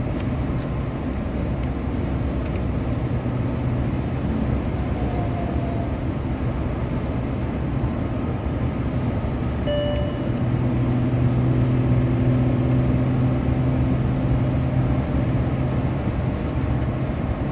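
Cabin noise inside a Volkswagen Phaeton cruising at motorway speed: a steady low engine drone over tyre and road noise, swelling slightly a little past the halfway point. A short electronic beep sounds once, about ten seconds in.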